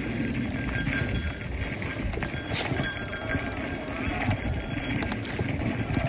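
Mountain bike rolling along a dirt singletrack: knobby tyres rumbling on the packed dirt, with the bike rattling and clicking over the bumps and wind buffeting the microphone.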